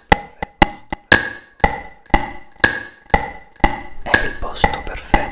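Steady ticking of a clock, about two ticks a second, each tick sharp with a short woody ring.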